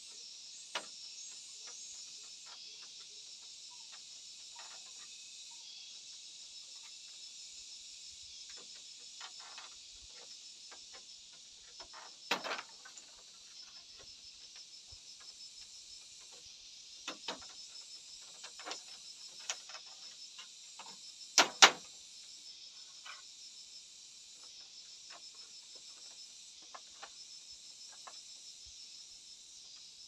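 A steady high-pitched chorus of insects, with scattered taps and knocks of bamboo battens being handled on a bamboo roof frame. There is a louder knock near the middle, and a sharp double knock about two-thirds of the way through is the loudest sound.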